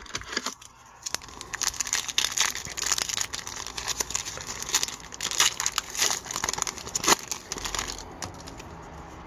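Shiny foil wrapper of a 2017-18 Upper Deck Series One hockey card pack being torn open and crinkled by hand: a dense run of crackles and rustling, sharpest near the end before it settles.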